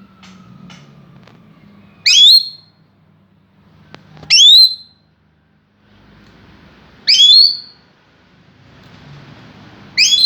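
Lory parrot giving four loud, shrill whistling calls, each about half a second long and sweeping upward, spaced two to three seconds apart.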